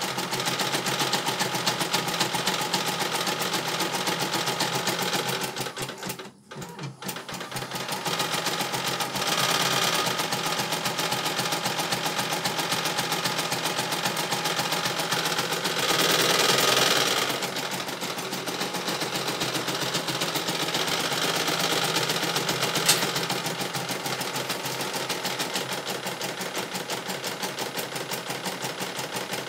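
CNY E900 computerized embroidery machine stitching a design, a rapid, even needle chatter. It stops briefly about six seconds in, then carries on.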